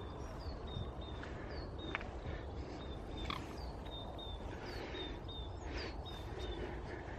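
Small birds calling outdoors: short high chirps repeating every half second to a second, over a steady low rumble.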